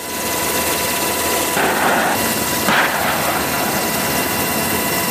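AH-64 Apache attack helicopter in flight: steady rotor and twin turboshaft engine noise with a thin high whine. The noise swells briefly twice around the middle.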